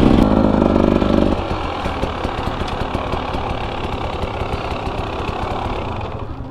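Dirt bike engine running at steady revs, then dropping about a second in to an uneven idle with a fast ticking beat, easing off near the end.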